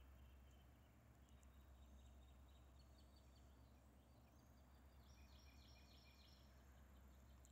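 Near silence: faint outdoor ambience with small birds chirping in short repeated notes, loudest around the middle, over a low steady rumble.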